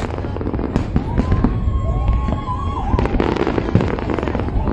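Aerial fireworks display: dense, rapid crackling and popping of bursting shells over a continuous low rumble of booms.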